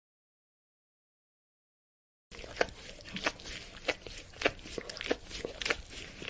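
Dog licking: wet smacking, slurping licks at roughly two a second, starting after about two seconds of dead silence.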